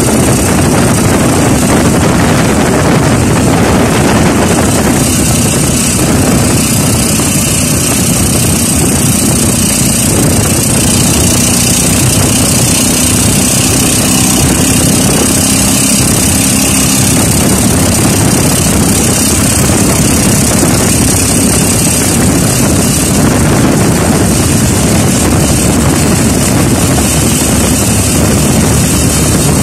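Motorcycle engine of a tricycle running steadily while on the move, heard loud from inside the open sidecar together with a constant rushing noise.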